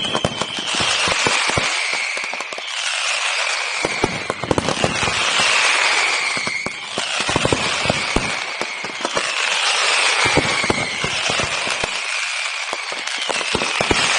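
Aerial fireworks display: shells bursting in a dense, rapid run of bangs and crackles, with a high hiss that falls slightly in pitch recurring about every two seconds.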